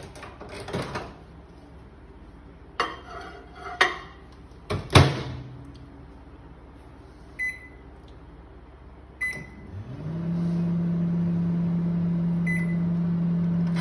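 Panasonic microwave oven being loaded and started: a few clinks as the plate goes in, a loud thump of the door shutting about five seconds in, three short keypad beeps, then a steady low hum of the oven running for the last four seconds as it heats a brownie.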